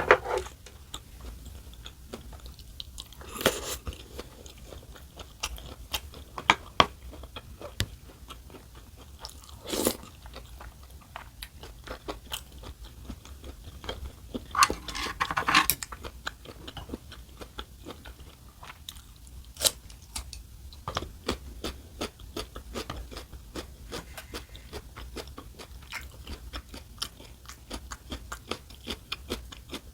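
Close-miked chewing and crunching of food, with steady small wet clicks of mastication and a few louder sharp knocks.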